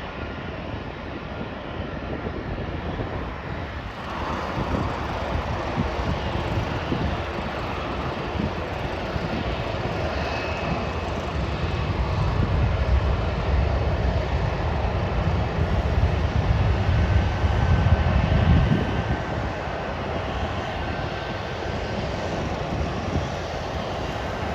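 Jet airliner engines passing: a steady rumble that builds, is loudest a little past the middle, then eases, with a faint high whine over it.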